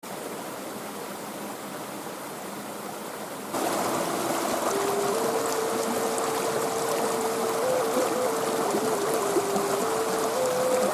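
Steady rushing of stream water, joined about three and a half seconds in by a slow, single-line melody that holds long notes and steps between a few pitches.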